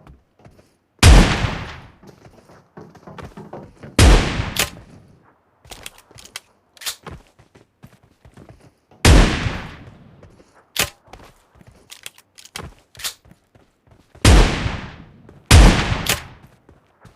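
Shotgun fired five times at uneven intervals, each loud blast trailing off over about a second, the last two about a second apart. Smaller clicks and knocks come between the shots.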